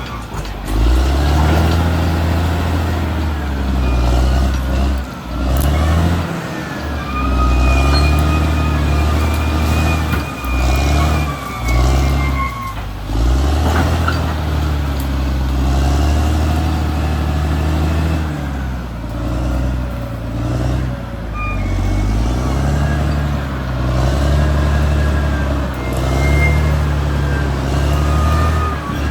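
Caterpillar D6R XL bulldozer's diesel engine working under changing load, its pitch rising and falling again and again as the throttle and load vary. A thin, wavering high whine runs over it.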